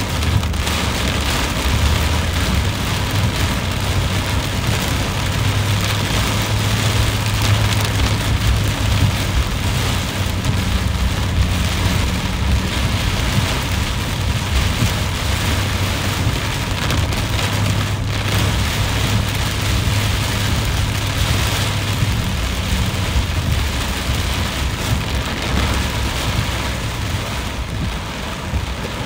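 Heavy rain drumming on a car's windshield and roof, heard from inside the moving car, over a low steady rumble of engine and wet tyres.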